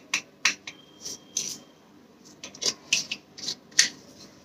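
Dried herbs being sprinkled by hand over batter in a bowl: irregular short, dry crackles and rustles.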